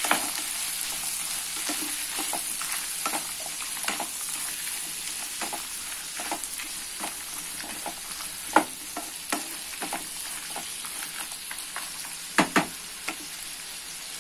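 Chopped tomatoes and onions with whole spices sizzling in butter and oil in a non-stick kadai while a wooden spatula stirs them. Scattered scrapes and taps of the spatula run through the sizzle, with sharper knocks about halfway through and a pair near the end.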